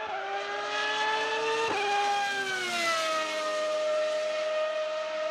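Racing car engine sound at high revs: its pitch rises slowly, breaks briefly just under two seconds in, then glides down and holds steady.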